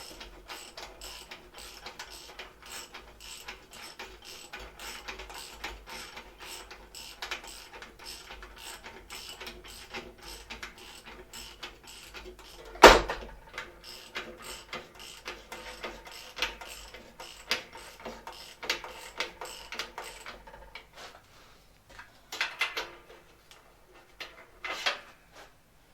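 Ratchet wrench clicking in quick runs as bolts are tightened to fix metal brackets to the band saw casting. One loud metal clank comes about 13 seconds in. The clicking stops about 20 seconds in, and a few lighter knocks follow near the end.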